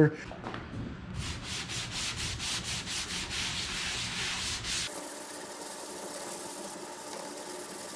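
Hand sanding with a sanding block on the primed aluminium hull of a jon boat: quick back-and-forth rasping strokes that knock down runs in the marine metal primer. About five seconds in, the sound changes to a steadier, thinner hiss.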